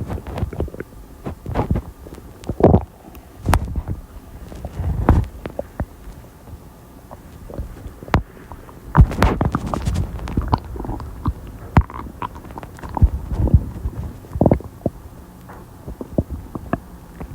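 A human stomach gurgling and rumbling while it digests soda and lunch: a run of irregular gurgles, some long and some short and sharp, with the loudest about halfway through.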